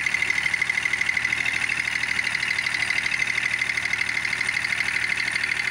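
John Deere F-935's three-cylinder diesel engine idling steadily, with an even, rapid pulse, running on fresh oil and a new filter with oil pressure up.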